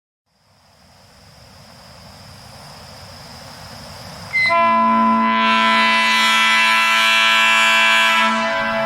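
Nathan AirChime P3 train horn with three new-cast bells, P0, P1 and P2, each power chamber on double diaphragms, sounding an A major chord an octave below the usual P3 (220, 277 and 330 Hz). A faint hiss builds for about four seconds, then the horn sounds with a brief chirp and holds one long blast of about four seconds, tapering near the end. The lowest note, from the P2 bell, is quite dominant in the chord.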